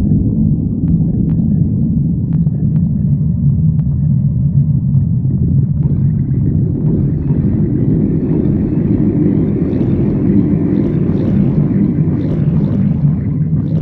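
Human stomach growling: a long, continuous low rumble, with higher sounds joining it from about halfway through and a few faint clicks in the first few seconds.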